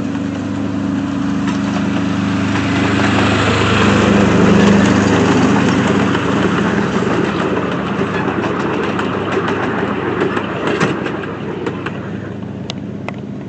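Engine of a 7¼-inch gauge miniature railway locomotive running as it goes by, growing loudest about four to five seconds in and then fading, with scattered clicks and knocks near the end.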